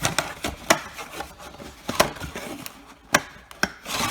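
Cardboard card box being handled: rustling with a handful of sharp taps and clicks.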